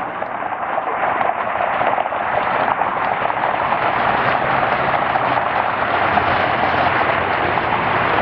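Jet airliner engines: a steady rushing noise that slowly grows louder.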